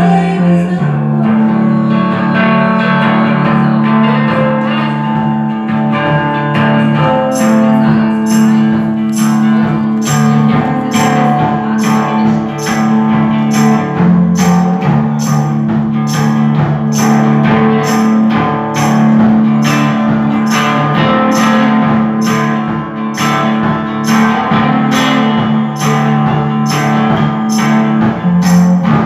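Live electric guitar and drum kit playing an instrumental passage without singing. About seven seconds in, the cymbals come in with a steady beat of about two strokes a second.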